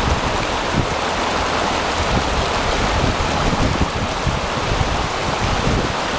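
Glacial meltwater river rushing and churning over stones, a steady, loud wash of water. Irregular low buffeting from wind on the microphone runs under it.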